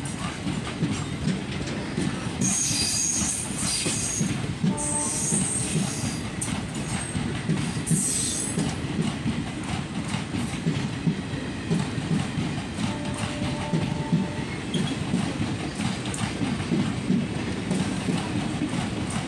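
Passenger coaches of an Indian Railways express rolling past as the train departs, the wheels rumbling and clattering over the rail. Brief high-pitched wheel squeals ring out about two to four seconds in and again about eight seconds in.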